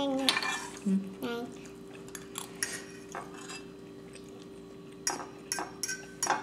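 Metal forks and a spoon clinking and scraping against ceramic bowls during a meal, in scattered short clicks that bunch together about five seconds in, over a faint steady hum.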